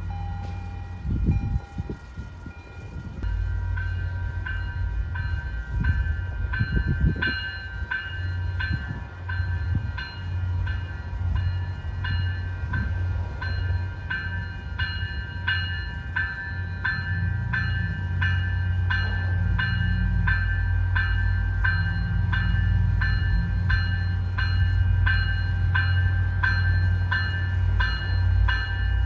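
A train rumbling past, building up a few seconds in, with a bell ringing steadily at about two strokes a second.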